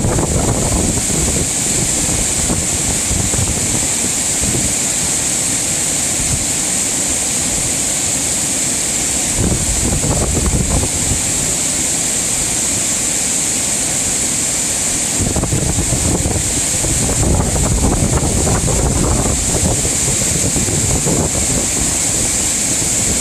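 Mountain valley stream rushing over rocks, a steady loud hiss of water, with wind rumbling on the microphone in spells, longest in the second half.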